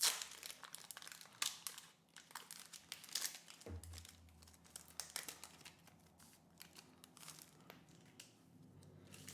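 Foil Pokémon booster pack wrapper crinkling and crackling in irregular bursts as it is handled and the cards come out.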